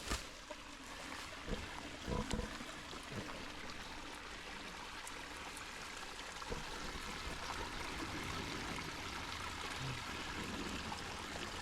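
A creek's flowing water, a steady rush that grows slowly louder, with a few soft thumps about two seconds in.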